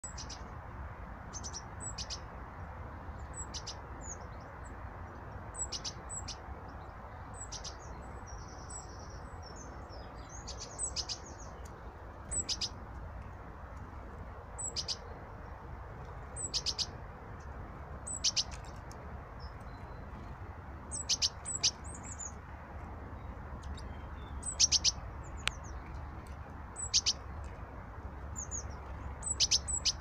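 Small songbirds calling: short, high chirps repeated every second or two, busier and louder in the second half, with a short buzzy note about nine seconds in, over a steady low background rumble.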